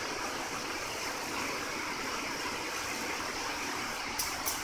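Long-arm industrial sewing machine running steadily as it stitches binding tape onto fabric, an even continuous noise, with two short sharp clicks near the end.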